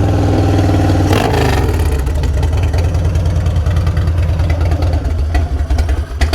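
Harley-Davidson 2000 Dyna Low Rider's Twin Cam 88 V-twin running through an aftermarket SPC exhaust, just after starting. It gives a brief rev about a second in, then settles back to a steady idle.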